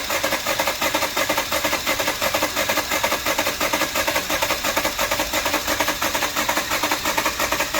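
2019 Jeep Cherokee's 2.4 L four-cylinder engine being cranked over by the starter, a fast even rhythmic whirring that goes on without the engine catching; the engine has a dead cylinder 4 with low compression.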